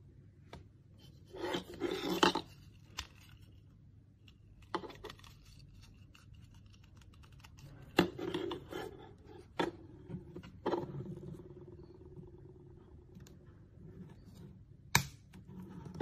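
Scraping and rustling of hard plastic vacuum parts and a paper manual being handled, with a few sharp clicks as parts are fitted. The vacuum motor is not running.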